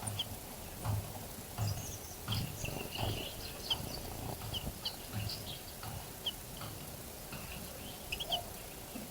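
Small wild birds chirping around a garden bird bath: many short, high chirps and twitters, scattered and irregular, over a series of low, dull thumps.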